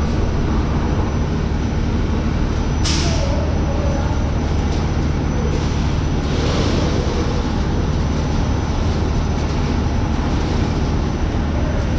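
Feed mill load-out machinery running with a steady drone and low hum. A sharp hiss, like a release of compressed air, comes about three seconds in, and a softer one at about six and a half seconds.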